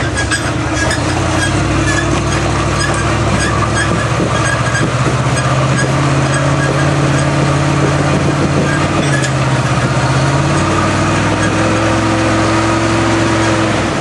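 Propane-fuelled International Scout engine working under load on a rock climb. Its pitch steps up about six seconds in and drops back a few seconds later, with scattered clicks over it.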